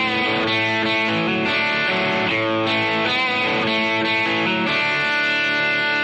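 Intro theme music led by guitar, playing at a steady level with the chords changing every second or so.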